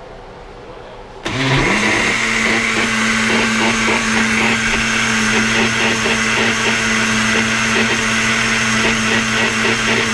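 Countertop blender switched on about a second in: its motor spins up quickly, then runs steadily, blending a green kale and mango smoothie.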